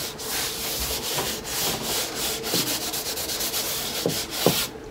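Gloved hand smearing charcoal across a canvas textured with modeling paste: repeated rough rubbing strokes with a few brief squeaks. The rubbing stops abruptly just before the end.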